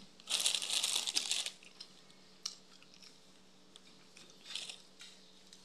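A person biting into crunchy food and chewing it close to the microphone: one loud crunch lasting about a second, then a few short, softer crunches as the chewing goes on.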